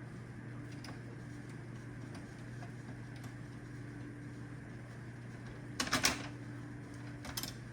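Screwdriver and plastic parts clicking and rattling while screws are taken out of a Roomba robot vacuum, in two short clusters of sharp clicks, the louder about six seconds in, over a steady low hum.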